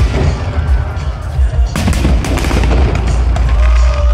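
Aerial fireworks bursting, with a bang at the start and two more sharp bangs about two seconds in, over a continuous deep rumble.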